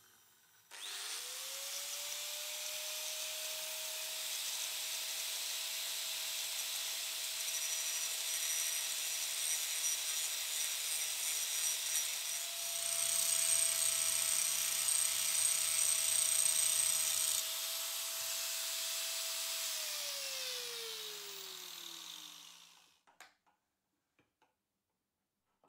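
Hand-held angle grinder spinning up about a second in and running with a steady whine while its abrasive disc grinds the end of a steel rod, with a lower hum added for a few seconds midway. Near the end it is switched off and the whine falls away as the disc coasts down.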